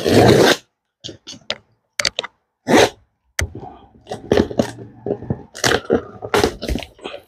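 Cardboard carton being opened by hand: packing tape torn and cardboard flaps scraped and crackled in a run of irregular sharp rips and rustles, the loudest right at the start.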